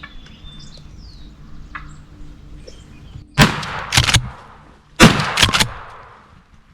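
Two shotgun blasts about a second and a half apart, each followed by a rolling echo that fades over about a second.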